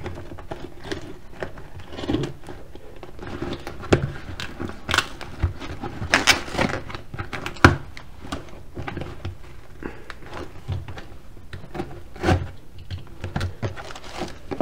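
Cardboard shipping box being cut open with a utility knife and unpacked: irregular scraping, tapping and flap-bending clicks, and crumpled packing paper rustling, loudest about six to seven seconds in.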